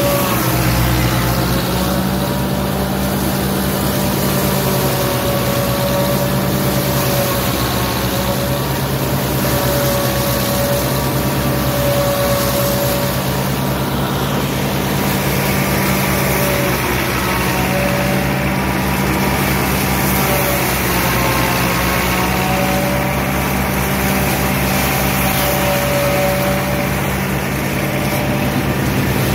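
Massey Ferguson tractor's diesel engine running steadily under load, driving a JF C120 AT forage harvester chopping elephant grass. A wavering whine rides over the low drone.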